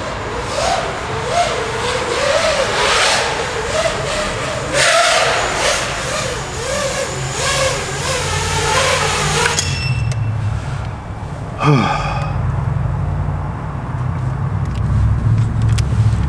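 FPV quadcopter on 2306 1700 kV motors and a 6S battery flying in a concrete parking garage, its motor-and-prop whine wavering up and down in pitch with the throttle, then stopping about ten seconds in. A short falling whine follows, then a low steady rumble.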